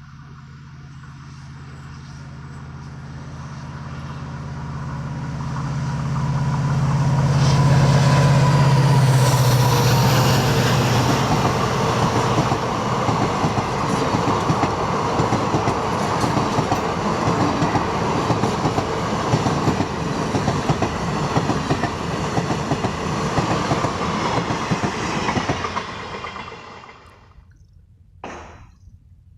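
EMD diesel locomotive passing with a deep, steady engine hum that grows louder over the first eight seconds or so, followed by the coaches rolling over the river bridge in a dense, rapid clatter of wheels that dies away abruptly near the end.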